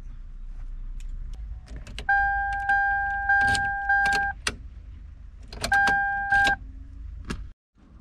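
Ignition key being inserted and turned in a newly fitted ignition lock cylinder on a 1996 Toyota Tacoma: sharp metallic clicks of the key and tumblers. The truck's key-reminder buzzer sounds a steady tone for about two seconds from about two seconds in, and again briefly near six seconds.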